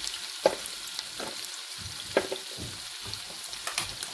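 Sliced onions sizzling as they fry in oil in a pan, a steady hiss. A few short clicks and knocks sound through it, the loudest about half a second in and just after two seconds.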